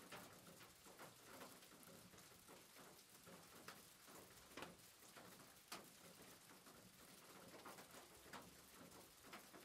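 Near silence: faint room hiss with a few scattered soft clicks.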